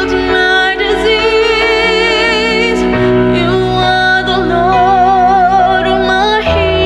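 A woman singing a slow worship ballad, holding long notes with vibrato, over piano chords played on a Korg digital keyboard. The bass of the chords changes about three seconds in and again near the end.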